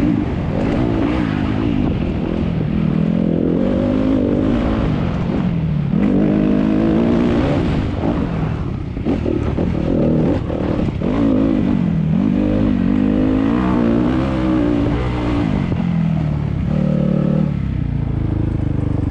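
Enduro motorcycle engine revving up and down again and again as the throttle is worked along a bumpy dirt trail, settling to steadier revs near the end.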